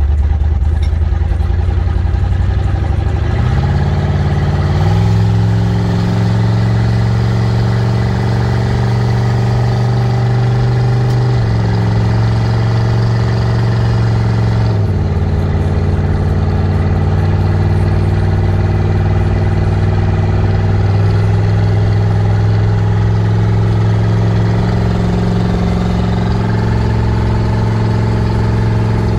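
Twin-turbo Ford F-100 pickup's engine heard from inside the cab while driving: its pitch climbs over the first five seconds as the truck pulls away, then it runs at a steady drone, with a drop in pitch about fifteen seconds in before settling again.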